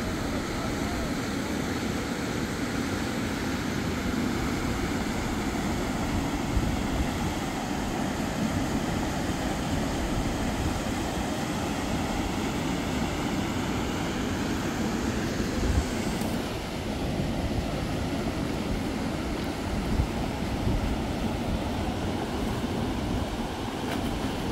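Steady rushing of river water, with wind buffeting the microphone.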